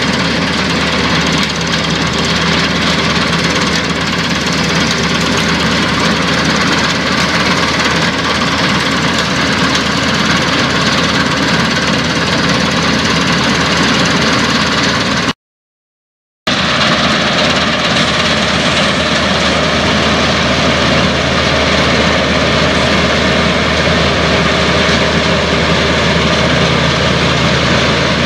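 Dronningborg 1250 combine harvester running steadily while harvesting grain, its engine and threshing machinery making a constant loud drone. The sound drops out completely for about a second just past halfway, then resumes unchanged.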